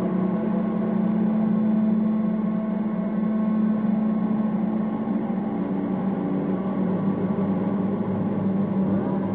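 Ambient drone soundtrack: a steady hum with several sustained tones layered above it, shifting slightly near the end.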